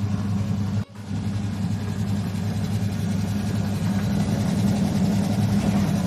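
Twin-tub washing machine's wash motor turning its newly fitted gearbox, a steady electric hum with no grinding from the gears: the worn-gear noise is gone. The sound breaks off for an instant just under a second in.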